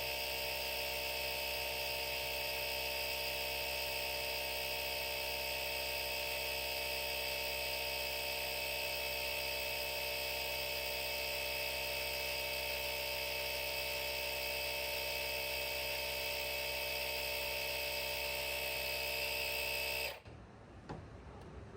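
Auxito AJ01 jump starter's built-in portable air compressor running steadily while pumping air into a car tyre through the valve stem. It cuts off abruptly about 20 seconds in.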